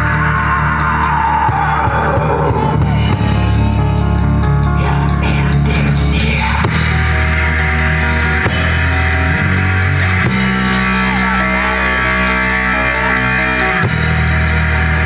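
Heavy metal band playing live at full volume: distorted electric guitars over bass and drum kit, the low riff shifting to a new note every few seconds.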